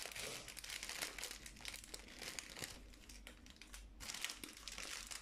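Small plastic bags of diamond-painting drills crinkling faintly as they are handled, in irregular crackles that ease off for a moment in the middle.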